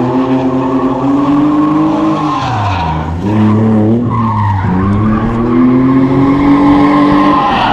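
Drift car's engine revving hard through a slide, with tyres squealing. Its note drops sharply about two and a half seconds in and again about four and a half seconds in, climbing back up each time.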